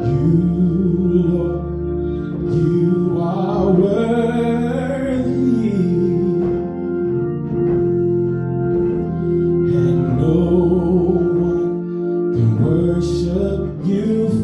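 A worship song with Hammond-style organ chords held under a sung melody. The singing glides and swells in long phrases.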